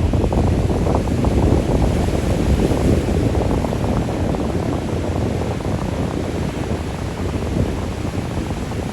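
Breeze buffeting the microphone with a low rumble, over the steady wash of ocean waves.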